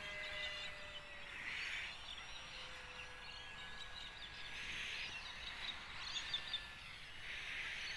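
Faint, thin whine of a distant UMX Cessna 182 RC model plane's electric motor, its pitch drifting slightly as it flies. A bird gives a harsh rasping call three times, about every three seconds.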